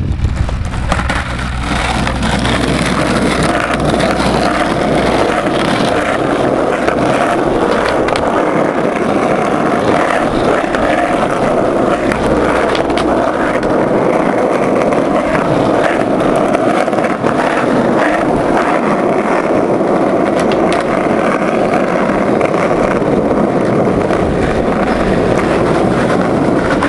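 Skateboard wheels rolling on asphalt: a steady, loud rolling noise with scattered short clicks over cracks and bumps.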